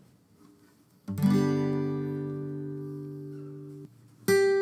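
Background music on acoustic guitar: a chord is strummed about a second in and rings, fading slowly for nearly three seconds, and a second chord is struck near the end.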